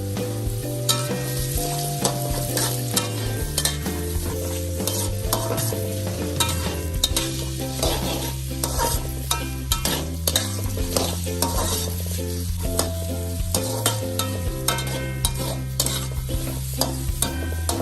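Food sizzling as it fries in a pan while being stirred, with a spatula clicking and scraping against the pan many times.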